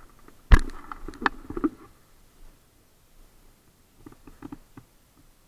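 Close handling noise at the microphone: one sharp knock about half a second in, then a cluster of smaller knocks and rustles over the next second, a lull, and a few faint clicks near the end.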